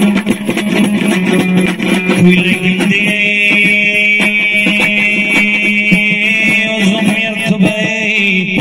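Afghan dambura, a two-stringed long-necked lute, strummed in a fast, even rhythm over a steady low drone.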